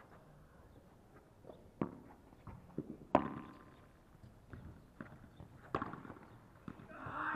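Padel rally: the ball is struck by solid padel rackets with sharp pops and bounces on the court, four or five hits a second or so apart. The loudest hit, about three seconds in, rings briefly, with lighter footsteps on the artificial turf between hits.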